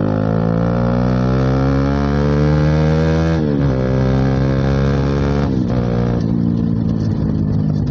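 Bajaj Pulsar NS200's single-cylinder engine accelerating hard through an open exhaust with the dB killer removed. The engine note climbs steadily and drops at an upshift about three and a half seconds in, then climbs again and dips once more at around five and a half seconds.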